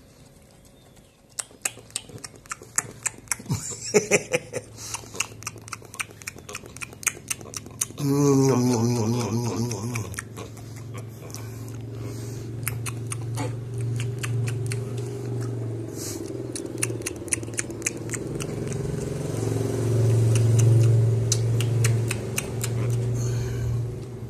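Pig-tailed macaque biting and chewing corn on the cob, a run of sharp crunching clicks. About eight seconds in, a steady low hum starts with a falling pitch and carries on under further chewing clicks, loudest near the end.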